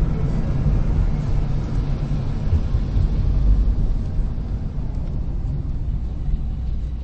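2010 Ford Mustang driving, heard from inside the cabin: a steady low rumble of engine and road noise that eases slightly in the second half.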